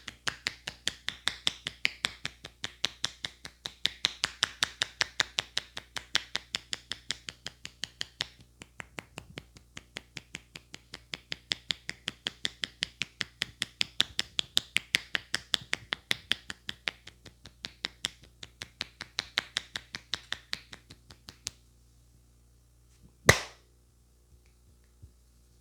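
Hands striking the head in rapid, rhythmic percussive massage, about four sharp claps a second in bursts, easing off near the end. About two seconds later comes one loud, sharp crack.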